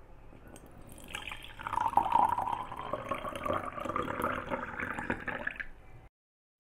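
Water pouring in a stream into a glass jar as it fills, starting about a second in and stopping near the end.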